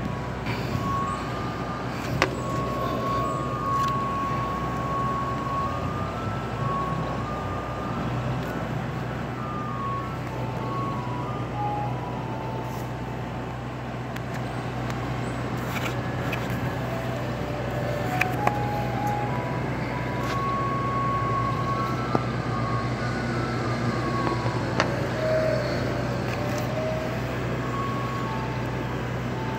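Ice cream truck's chime playing a simple jingle melody, one clear note at a time, over a steady low engine hum.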